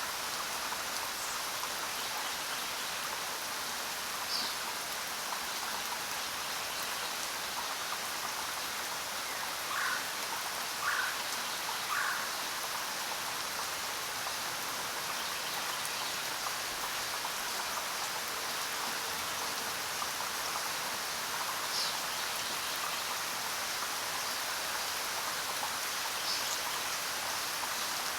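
Steady rain falling on jungle foliage. A few brief high chirps come through the rain, and near the middle three short calls about a second apart.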